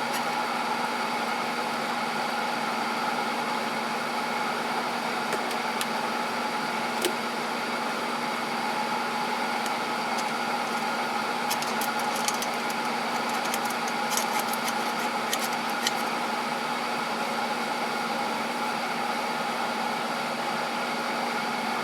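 Steady hum from a battery charger powering an electrolysis rust-removal bath, with a few faint ticks between about 11 and 16 seconds in.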